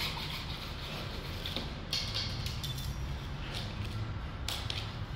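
White PVC electrical conduit being handled and shifted on a concrete floor, with short scrapes and knocks about two seconds in and near the end, over a steady low hum.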